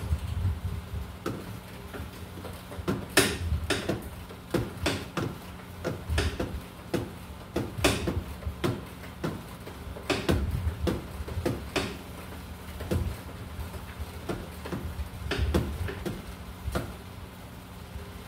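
Metal hand tools clicking and knocking at irregular intervals under a car's dashboard while a bolt on the pedal-assembly struts is being undone. A few knocks stand out louder than the rest.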